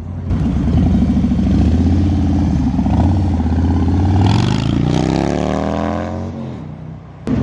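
Cruiser motorcycle engine running loud as it rides past, then rising steeply in pitch as it accelerates away and fades.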